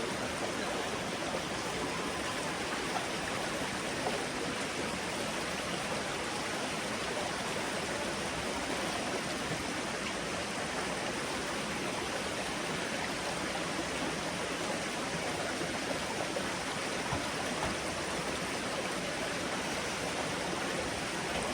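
Rushing water running steadily, a continuous even hiss with no change in level.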